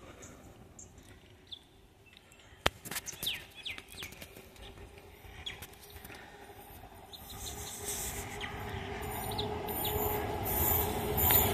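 Small birds chirping, with one sharp click a few seconds in; then the rumble and hum of an approaching train hauled by a WAP7 electric locomotive builds steadily louder over the last few seconds.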